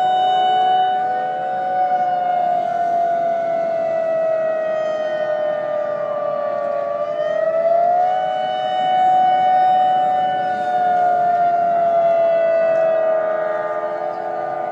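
Civil-defence sirens sounding a tsunami warning: several wailing tones at different pitches overlap and drift out of step. The main tone holds high, sinks slowly over several seconds, rises again about eight seconds in, then sinks once more.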